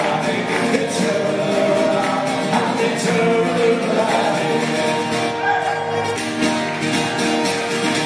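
Live Irish folk music: a man singing, accompanied by strummed acoustic guitar and a mandolin-family instrument.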